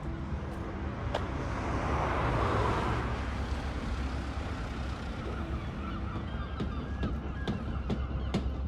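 Harbourside street ambience with a steady low rumble. A vehicle passes, loudest about two to three seconds in. From about halfway on, birds give many short calls.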